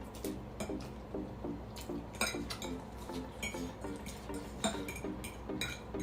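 Cutlery clinking against a plate in sharp, irregular clicks while eating, the loudest about two seconds in and again near five seconds, over quiet background music with an even beat.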